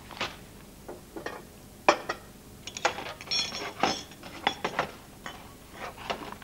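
Clinks and knocks of a small enamel pot handled on a hot plate and tray, with one ringing metallic clink about three and a half seconds in.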